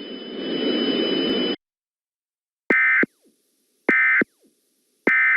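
Emergency Alert System end-of-message data bursts: three short, loud, buzzy digital chirps about a second and a quarter apart, the last right at the end, signalling that the alert is over. Before them, about a second and a half of hiss with two faint steady high tones, cut off by silence.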